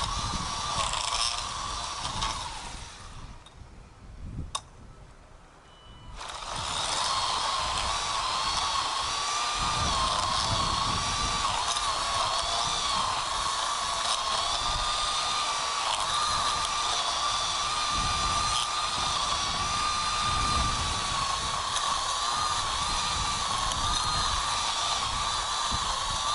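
Ryobi 40V cordless string trimmer running with a steady high motor whine. About two and a half seconds in it winds down, and it spins back up about six seconds in, then runs on steadily.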